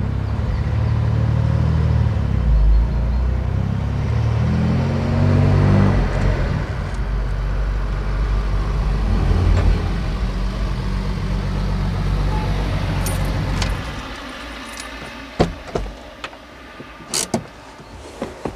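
Mercedes-Benz Ponton 220A's straight-six engine running as the car is driven, heard from inside the cabin, its pitch rising and falling with the gears and revs. About fourteen seconds in, the engine sound gives way to a much quieter background with a few sharp clicks.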